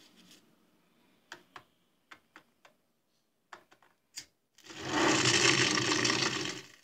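Cartoon sound effects played through a TV speaker: a handful of small clicks and snaps as cigarettes are broken and dropped into a bowl, then, about four and a half seconds in, a loud rush of fire noise that lasts about two seconds and cuts off.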